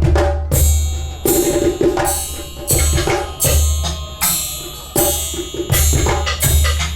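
Free-improvised percussion music: drums and struck metal hit in a loose, repeated pulse about every three-quarters of a second, each hit leaving a bright ringing wash over a deep drum boom.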